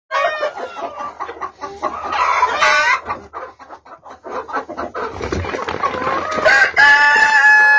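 Chickens clucking and squawking in short, pitch-bending calls, then a rooster crowing in one long, steady call starting about seven seconds in.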